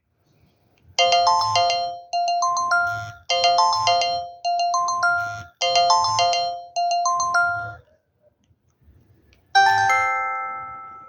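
Ringtone of an au W31K Kyocera phone: a bright electronic melody of short chime notes, one phrase repeating about six times. After a short pause, one chime rings out and fades.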